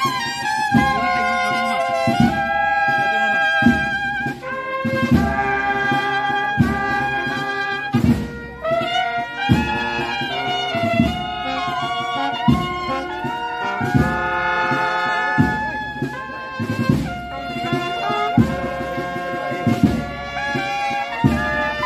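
Brass band playing live, trumpets carrying a sustained melody over a steady low beat.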